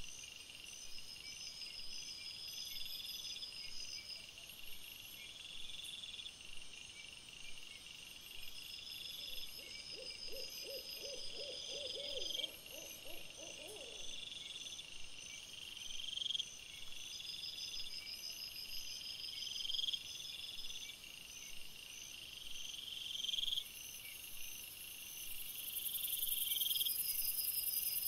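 Crickets chirping in a steady, evenly repeating pattern. About ten seconds in, a low, rapidly trilling call lasts some four seconds.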